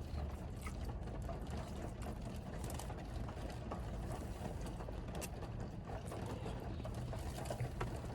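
Steady low hum of room background with scattered light clicks and taps of utensils and food containers being handled during a meal.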